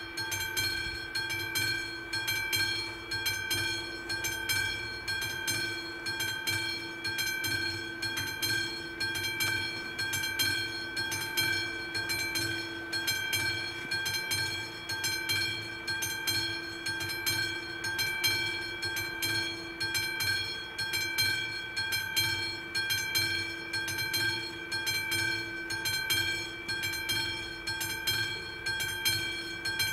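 Classic electric bell of an AŽD 71 level-crossing signal ringing continuously with rapid, even strokes and a steady metallic tone: the crossing is warning of an approaching train.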